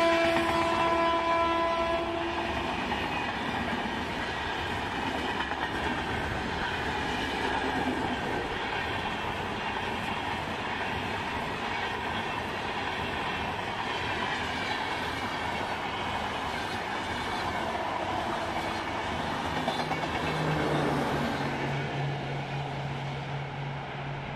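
A passenger express of LHB coaches passes close by. A train horn sounds for about the first two seconds and cuts off, then the steady rumble and clickety-clack of the coaches running past fill the rest. The clatter eases near the end as the train draws away, and a low steady hum comes in.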